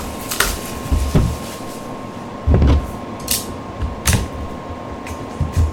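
Trading card boxes and packs being handled and opened on a table: irregular soft thumps and brief scratchy rustles of cardboard and wrapper, with a steady thin tone underneath.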